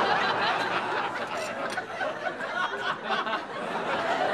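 Studio audience laughing, the laughter ebbing and swelling again, with a couple of light clinks from the table.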